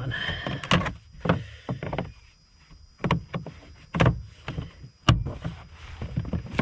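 Plastic trim piece from a 2003 Toyota Avalon's trunk being pushed and snapped back into place, making a series of irregular hollow knocks and clicks with handling rattle between them.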